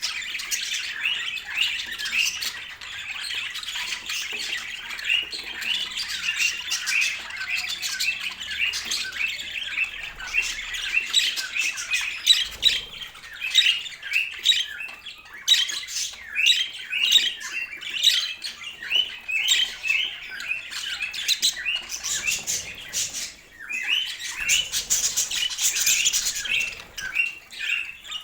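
Budgerigars chattering: a dense, unbroken run of short chirps and squawks.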